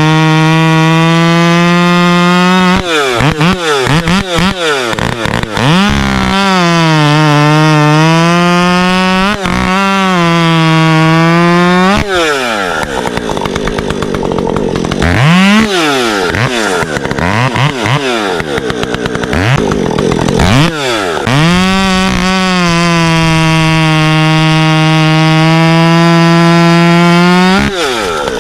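Husqvarna professional two-stroke chainsaw cutting wood at full throttle in several long cuts, its pitch sagging a little as the chain takes the load. Between cuts the throttle is let off, and from about 12 to 22 seconds it is blipped, with the pitch swooping down and up.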